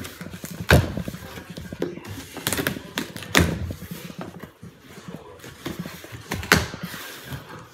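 Cardboard shipping box being torn open by hand along its tear strip: several sharp rips and knocks, with rustling of cardboard between them.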